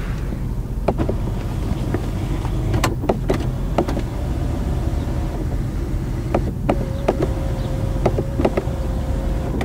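A steady low rumble inside a car's cabin, broken by a series of sharp clicks and knocks from interior fittings being handled. A small electric motor hums steadily for the last three seconds or so.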